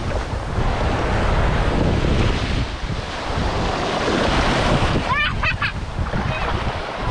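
Small sea waves washing onto a sandy shore, with heavy wind rumble on the microphone. About five seconds in, a brief high-pitched voice.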